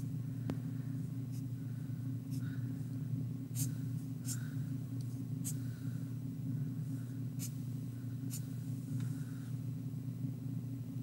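Black felt-tip marker drawing short strokes on paper, about one stroke a second, over a steady low hum.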